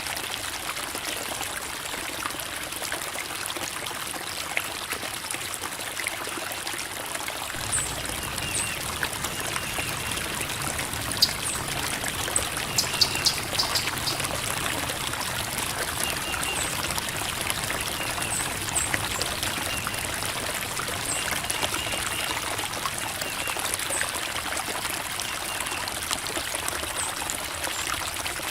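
Creek water flowing and trickling over rocks in a steady babble, with faint short high chirps now and then.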